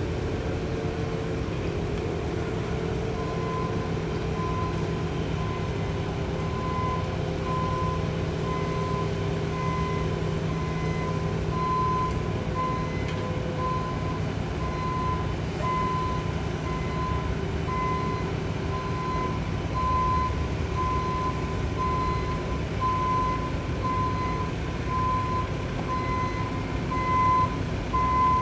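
Construction vehicle's backup alarm beeping in a steady, evenly spaced rhythm, starting about three seconds in, over the steady running of a diesel engine.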